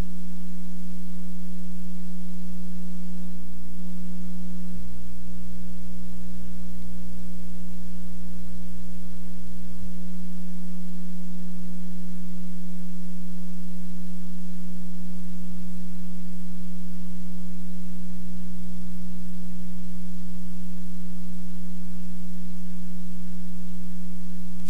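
A loud, steady low-pitched electrical hum: one unbroken droning tone with faint higher overtones.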